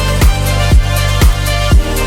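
Background electronic dance music with a steady four-on-the-floor kick drum, about two beats a second, over a held bass line.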